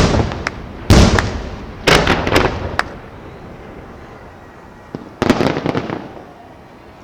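Aerial fireworks bursting: sharp reports about a second apart in the first three seconds, a lull, then a quick cluster of bursts about five seconds in that dies away in echo.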